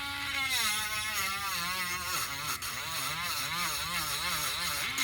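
Electric power sander running against wood, its motor whine dropping in pitch about half a second in as it is pressed down, then wavering up and down about one and a half times a second as the pressure varies; pressing lighter lets it run at full speed.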